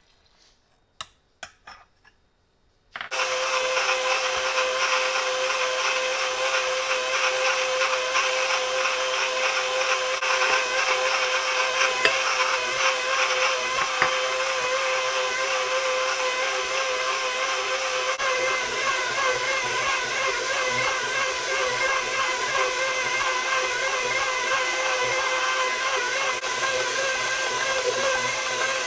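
KitchenAid Professional HD stand mixer switched on about three seconds in and running steadily with a motor whine, its dough hook kneading flour and milk into bread dough. A few light taps come just before it starts, and the motor's tone shifts slightly partway through.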